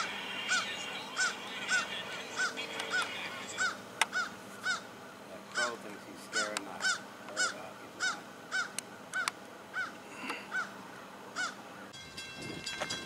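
A bird calling one short note over and over, each rising and falling, about two a second, stopping near the end.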